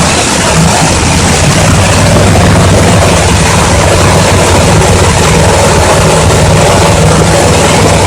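Jet engine of a jet-powered drag car running steadily: a loud, continuous roar with a low hum beneath it.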